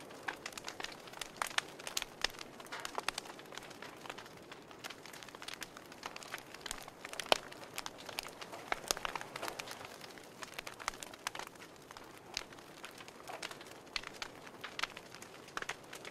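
Wood fire burning in a wood stove, crackling with irregular sharp pops and snaps over a faint steady hiss.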